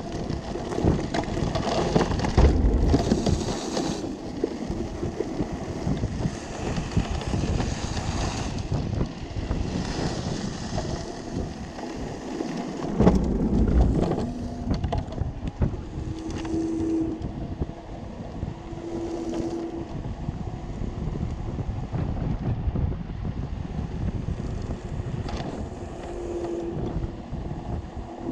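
Homemade electric go-kart on the move: wind buffeting the microphone and tyres rumbling roughly over a gravel path, changing about halfway through to smoother, quieter rolling on tarmac.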